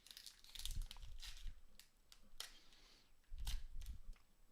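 Faint rustling and soft clicks of trading cards and pack wrappers being handled, with a few light taps.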